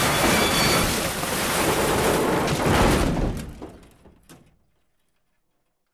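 Loud rushing, rumbling noise that fades out from about three seconds in, with one faint knock as it dies away.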